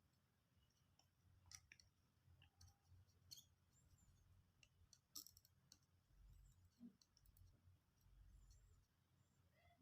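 Near silence with a few faint, scattered clicks over a low hum.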